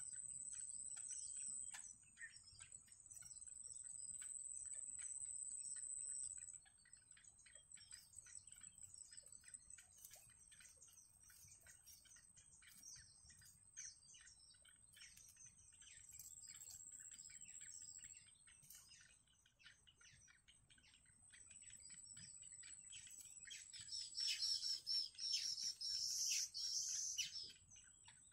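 Faint, rapid high chirping and ticking from yellow bittern chicks in the nest, rising to a louder burst of chirps near the end. Behind it runs a steady high whine that breaks off and returns a few times.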